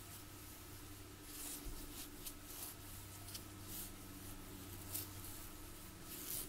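Faint, irregular rustling and scraping of thick yarn drawn through loops on a wooden crochet hook while a double-crochet-two-together stitch is worked, over a low steady hum.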